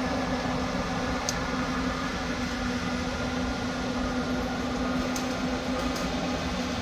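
Cat 255 skid steer's diesel engine running at a steady speed, a constant hum with a few faint ticks.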